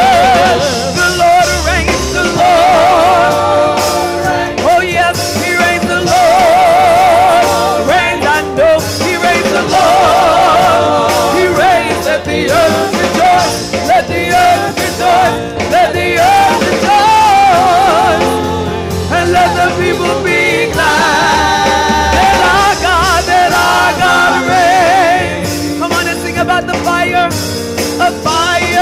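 A woman singing a gospel worship song, holding long notes with a wide vibrato, accompanied by an electronic keyboard.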